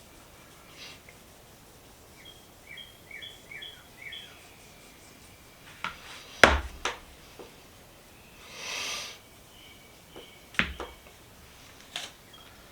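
A small bird chirps a quick run of five or six short falling calls. Later come two sharp knocks of something hard put down on a work surface, the loudest sounds here, with a short hiss of under a second between them.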